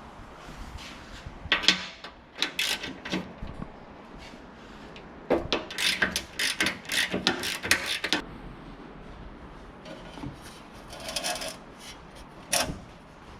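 Tools and metal parts being handled in bursts of clattering and scraping, with one sharp knock near the end.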